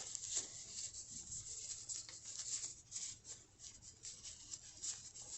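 Faint, irregular rustling and rubbing of a winter glove's fabric as it is handled and turned back right side out.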